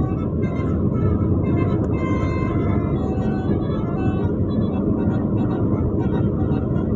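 Steady running noise from riding on a motorcycle: engine and wind in a low, continuous rumble, with short high tones coming and going above it.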